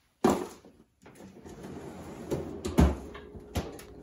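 Kitchen handling sounds: a sharp knock near the start, then rustling with a few clicks and one heavier thump.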